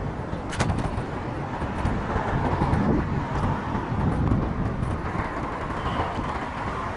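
Steady, uneven low rumble of road and wind noise on a bike-mounted camera while riding a bicycle through city traffic, with cars going past. A single sharp click comes about half a second in.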